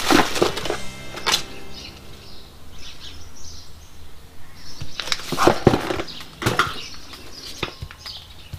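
Metal pieces of a brake caliper piston tool kit clicking and knocking as they are handled and set into their moulded plastic case. The knocks come a second or more apart, loudest about five and a half seconds in, with faint bird chirps between them.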